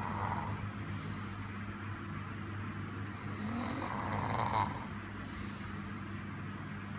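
A sleeping person snoring with slow breaths a few seconds apart, the loudest about four and a half seconds in, over a steady low hum.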